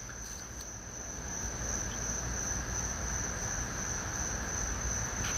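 Crickets or similar insects singing in a continuous high-pitched chorus, over a low, steady background rumble.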